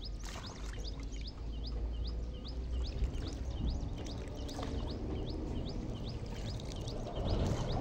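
A bird repeating a short, high, upswept chirp about three times a second, over a low rumble, with water splashing near the end.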